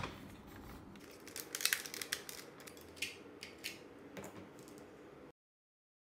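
Hard plastic Tobot transforming robot-car toys handled on a tabletop: a sharp click at the start, then scattered small clicks and clacks of plastic parts. The sound cuts to silence a little past five seconds in.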